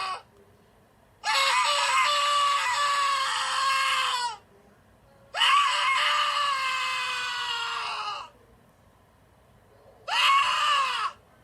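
A person screaming in fear, three times: two long, high-pitched screams that fall slightly in pitch, then a shorter one near the end, with short silences between them.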